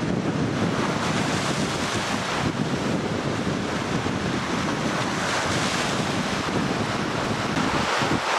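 Strong typhoon wind buffeting the microphone over rough lake waves breaking, a steady loud rushing noise.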